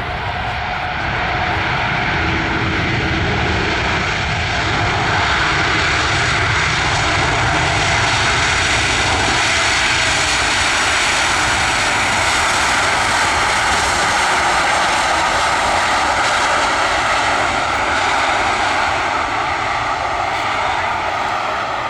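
Jet airliner flying low overhead on landing approach, its engines giving a loud, steady rushing roar that swells in the first second and begins to fade near the end.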